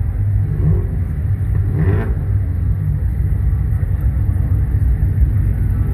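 Low, steady exhaust rumble of cars rolling slowly past at close range, the nearest a dark Chrysler 300 sedan.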